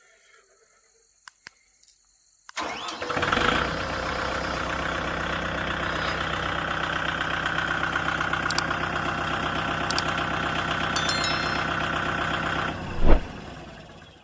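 Tractor diesel engine cranking and catching about two and a half seconds in, then idling steadily. Near the end it is shut off with a thump and runs down to a stop.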